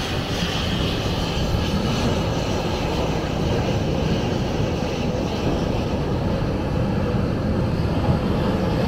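Jet airliner's engines running as it moves along the runway: a deep, steady noise that holds level throughout, mixed with wind buffeting the microphone.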